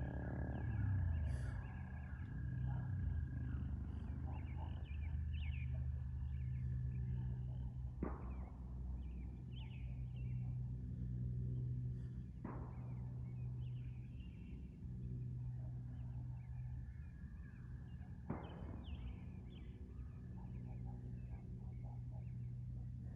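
Rural outdoor ambience: scattered short high chirps from small creatures over a steady low hum. A thin steady whistle-like tone fades after about seven seconds, and three quick falling whistles come well apart.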